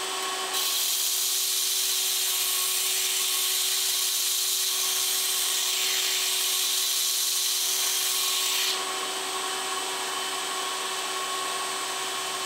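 Wilmont belt grinder running with a steady hum while a knife edge is ground against the moving belt in a sharpening fixture, making a harsh high hiss of steel on abrasive. The grinding starts about half a second in and stops after about eight seconds, leaving the grinder's motor running.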